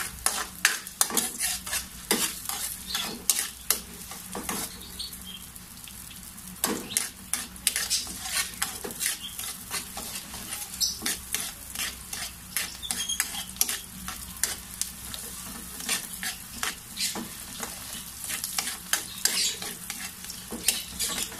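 Garlic sizzling as it fries in oil and butter in a wok. A metal ladle stirs it, with frequent clinks and scrapes against the pan.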